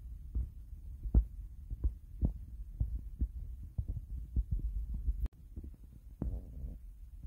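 Handling noise on a handheld camera's microphone: a low rumble with irregular soft thumps and taps. The level drops suddenly about five seconds in, and a short rustle follows.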